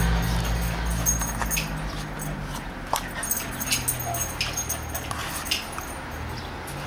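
A dog whining in a low, drawn-out moan that fades as it goes, with scattered light clicks and taps.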